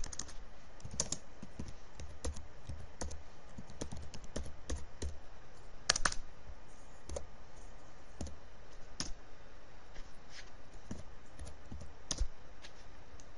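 Keys being typed on an HP Pavilion dv5 laptop keyboard: irregular taps in short runs, with a louder single key press about six seconds in and another near the end.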